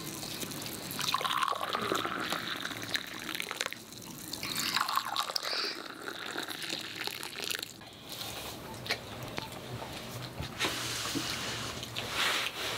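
Tea being poured into glass mugs, one after another: the stream splashes and gurgles as each mug fills.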